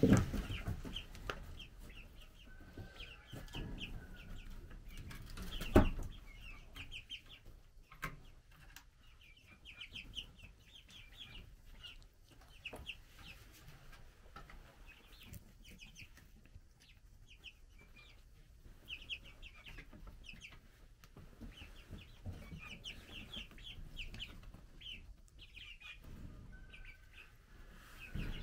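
A flock of young chickens peeping, with quick short high notes in little runs throughout. There is a sharp loud thump about six seconds in.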